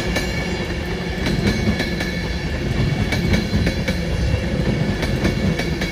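Class 390 Pendolino electric train passing close by: a steady rumble of wheels on rail with repeated short clicks from the wheels on the track, and a few thin steady high tones above it.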